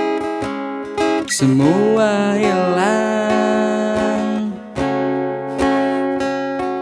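Steel-string acoustic guitar, a Yamaha F310, strummed as accompaniment to a voice singing a slow ballad in Indonesian, the sung notes held long with vibrato.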